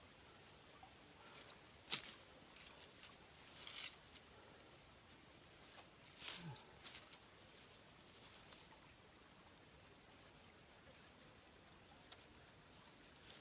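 A steady, high insect drone in two thin tones, with a few sharp clicks and soft rustles, the loudest click about two seconds in.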